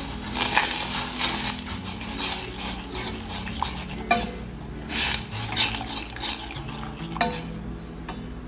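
Wooden spoon stirring milk with melted butter in a stainless steel saucepan, scraping and knocking against the pan in repeated, irregular strokes.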